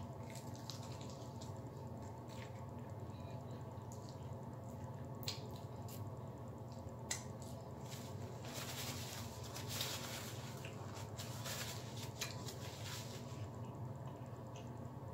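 Close-up chewing and lip-smacking on a honey-dipped fried chicken wing: wet, sticky mouth sounds with a few sharp clicks. A paper napkin rustles for several seconds from about eight seconds in, over a steady low hum.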